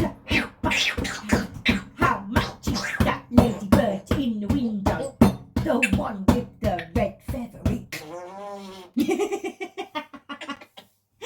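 Congo African grey parrot making a rapid string of short, sharp mouth noises and vocal sounds, like beatboxing, with one longer wavering call about eight seconds in.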